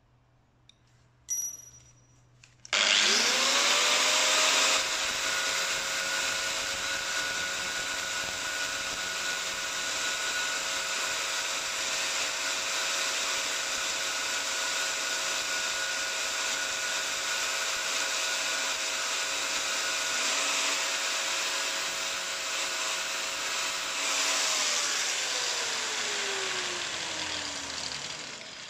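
Metabo electric angle grinder switched on about three seconds in, its motor spinning up with a rising whine. It then grinds steel steadily, thinning the edges of a Torx T55 bit so the bit reaches down to the bolt. Near the end it is switched off and winds down with a falling pitch.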